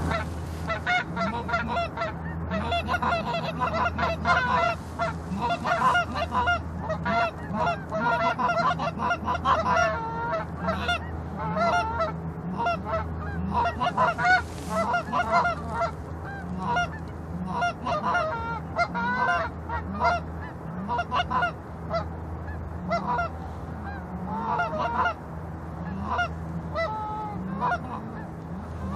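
A flock of geese honking: many short, overlapping calls that go on without a break, over a steady low hum.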